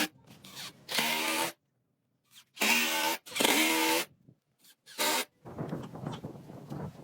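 A power tool working wood in several short bursts of about half a second each, separated by abrupt silences. A fainter, rougher rustling noise follows near the end.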